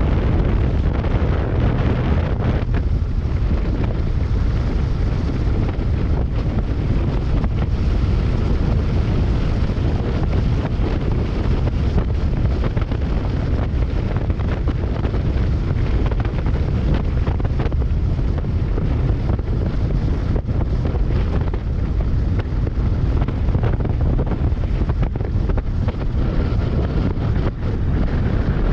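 Steady, heavy wind noise buffeting the microphone of a Kawasaki Versys 650 motorcycle riding at road speed.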